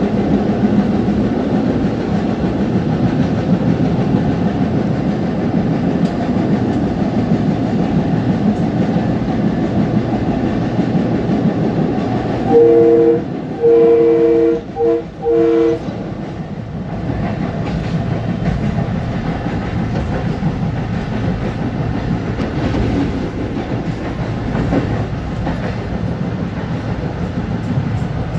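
Long Island Rail Road M3 electric train running, a steady rumble with wheel clatter on the rails. About halfway through, a two-tone train horn sounds four blasts, the third very short.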